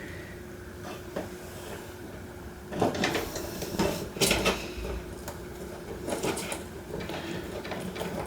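Wires and small tools being handled while a switch is wired up: clusters of short clicks and scrapes about three seconds in and again about six seconds in, over a faint steady hum.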